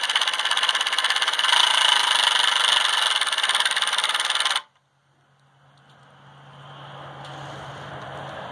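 Milwaukee M18 brushless impact driver hammering rapidly as it drives a screw through a pine board into a wooden post, stopping abruptly about four and a half seconds in. A quieter rustle follows.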